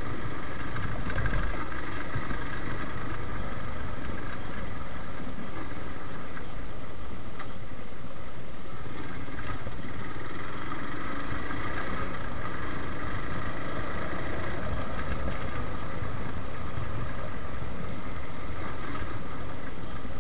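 Suzuki Gixxer motorcycle's single-cylinder engine running at a steady cruise on a rough farm track, with a low rumble of wind and road noise underneath.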